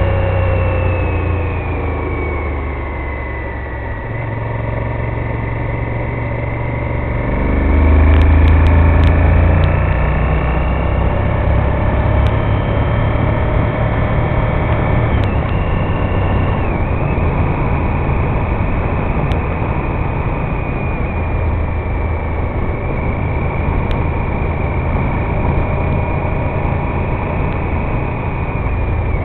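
Honda VTR1000F Firestorm's V-twin engine running on the move, with wind rush. The engine note falls over the first few seconds as the bike slows, then rises sharply and gets louder about seven seconds in as it accelerates, and runs steadily after that, with a few faint clicks.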